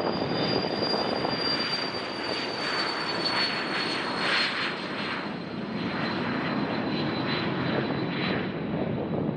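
Business jet's turbofan engines with a steady roar and a high whine that slowly falls in pitch.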